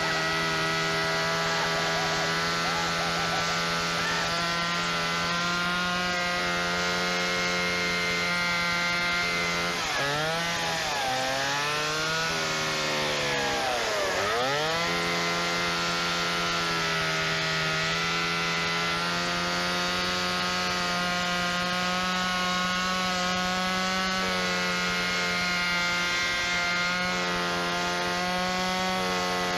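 Gasoline chainsaw running at high revs while cutting into a pumpkin. Its pitch sags deeply twice, about ten and fourteen seconds in, as the engine bogs under the cut, then recovers.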